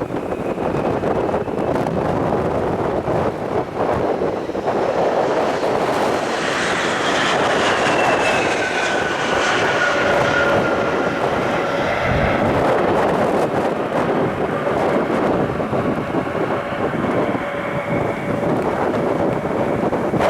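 Airliner engines passing, a loud steady rush with a whine that slides down in pitch as the aircraft goes by, mostly about a third of the way in.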